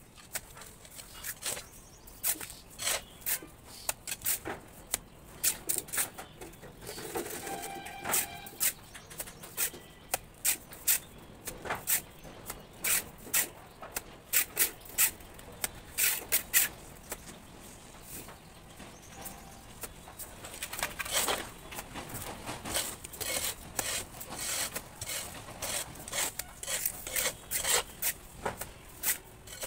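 Mason's trowel working cement-sand plaster onto a brick wall: short irregular scrapes and slaps, often less than a second apart, as mortar is scooped from the pan and spread on the wall, with a quick run of strokes about two-thirds of the way through. A brief pitched call sounds about seven seconds in.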